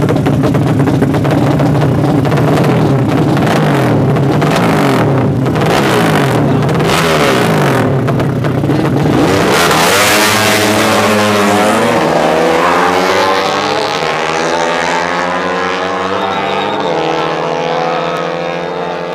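Drag-racing motorcycle engine revving up and down at the start line, then launching about ten seconds in and accelerating hard, its pitch climbing in several rising sweeps as it shifts up through the gears and dropping away as it pulls into the distance.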